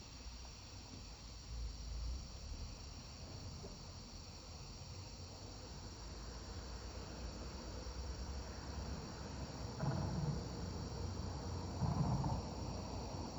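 Steady, high-pitched chorus of insects droning without a break, with a low rumble underneath and two louder low bursts near the end.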